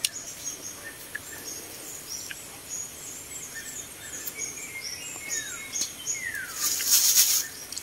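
Birds calling: a steady run of short, high chirps, with two falling whistles about five and six seconds in. A brief rustle near the end.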